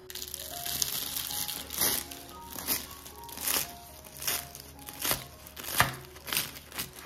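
A knife cuts through the crisp, flaky phyllo layers of a baked minced-meat börek in a metal tray, and the pastry crackles and crunches. After a steady crackle at first, there is a sharp crunch roughly every three-quarters of a second as each cut goes down. Background music plays along.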